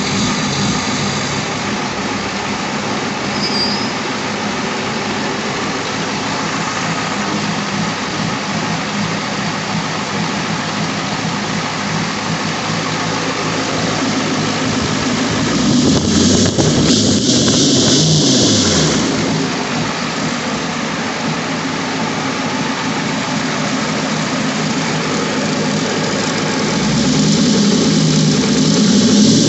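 International 6.9L IDI V8 diesel engine running at idle, with the revs raised about halfway through and falling back, then raised again near the end.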